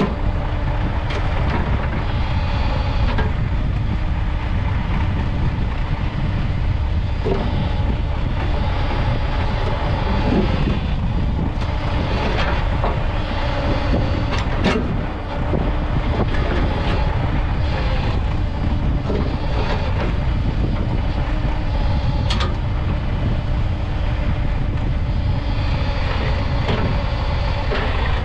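Diesel engine of a YuMZ EO-2621 backhoe excavator running steadily under working load while it digs rock and dirt, with a steady hum over the rumble and several sharp metallic clanks and knocks scattered through.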